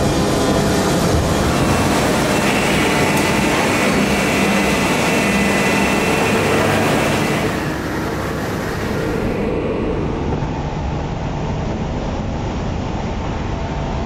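Steady, loud din of plastic injection moulding machines running on a factory floor, with a high whine for a few seconds. About halfway through the sound turns duller and a little quieter.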